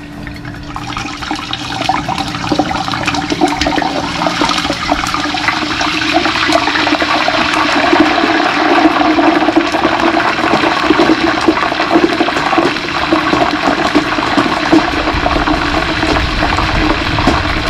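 Hot oil in a turkey fryer bubbling and sizzling hard as a whole turkey is lowered in. The sizzle swells over the first two seconds, then stays loud and even.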